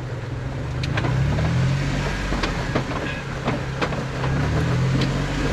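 Jeep Wrangler JKU engine revving twice under load as it tries to drive off a rock it is high-centered on, with scattered sharp knocks throughout.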